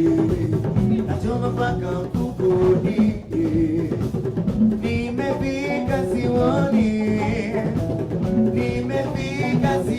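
A band playing a song live, with drum kit and guitar and a singing voice over them.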